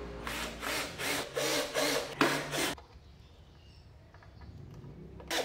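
Scraping and rubbing against a wooden speaker box as it is handled: about five quick strokes in the first few seconds, then another just before the end.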